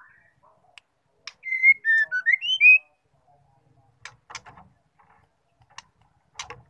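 Female white-rumped shama singing a short, loud phrase of clear whistled notes that slide up and down, about a second in. A few sharp clicks follow later.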